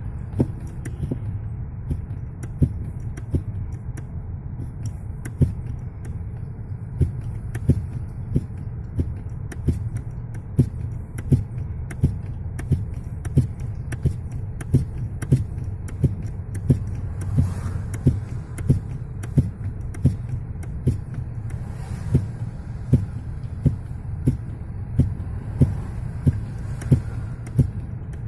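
Car's vacuum brake booster knocking sharply over the low hum of the running engine. The knocks settle into a regular beat of about three every two seconds.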